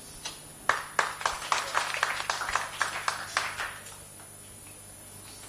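Scattered hand clapping from a small audience, a few sharp claps a second, starting about a second in and dying away after about three seconds.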